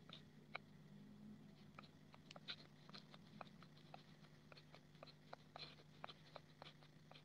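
Near silence: faint, irregular light clicks, several a second, over a low steady hum.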